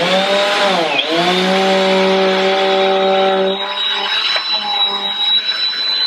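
Bissell Power Force Compact bagless upright vacuum switched on and running, pretty loud: a high motor whine over a lower hum. The pitch dips briefly about a second in, and the lower hum drops away past halfway, leaving the whine.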